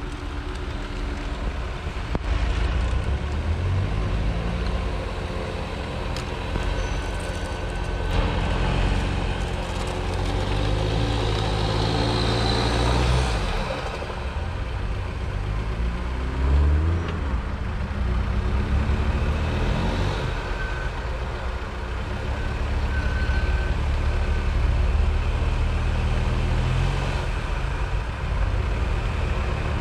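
Off-road 4x4's engine running under load, its revs rising and falling, with a climbing rev a little past halfway.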